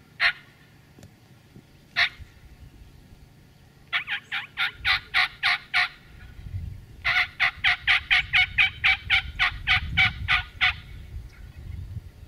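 Turkey calling: two single clucks, then two long runs of rapid yelps about six notes a second, the first about four seconds in and the second about seven seconds in, each lasting a few seconds.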